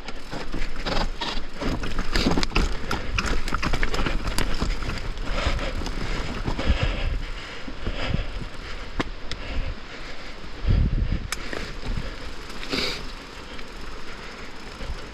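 Downhill mountain bike rolling fast over a rough dirt and rock trail: tyres crunching and the bike rattling, with many sharp knocks and clatters and a steady rush of wind on the microphone. A heavier thump comes about eleven seconds in.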